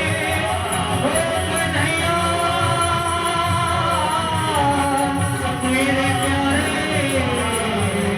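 A song: a singing voice holding long notes that glide from one pitch to the next over a steady beat.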